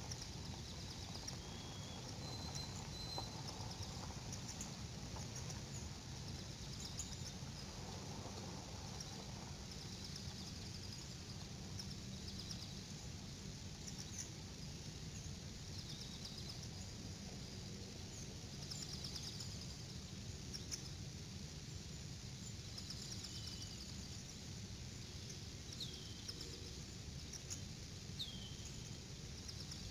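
Outdoor ambience: steady low background noise, with faint high bird chirps that drop in pitch and short quick trills now and then, most noticeable near the start and near the end.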